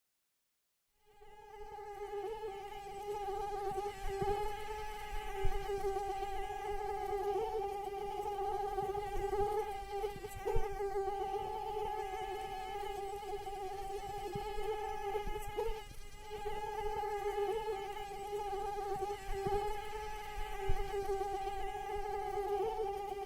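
Mosquito in flight: a steady, high-pitched whine of its wingbeat that fades in about a second in after a short silence. A few brief low thumps are heard under it.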